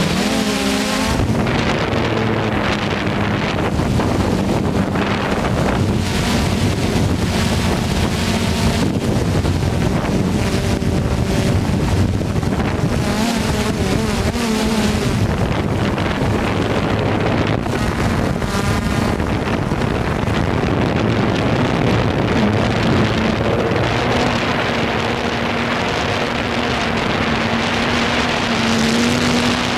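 Hubsan quadcopter drone's electric motors and propellers running steadily in flight, with wind rushing over the microphone. The hum's pitch shifts a little, stepping up slightly near the end.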